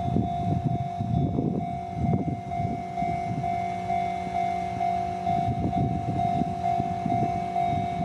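Japanese level-crossing warning bell ringing: an electronic alarm repeating one tone in a quick, even pattern while the crossing's red lights flash, with an uneven low rumble beneath it.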